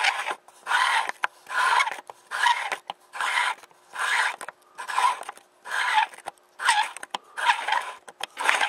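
Screw-on wide-angle conversion lens being unscrewed by hand from a camcorder. Its threads rasp in a series of short twisting strokes, about one every three-quarters of a second.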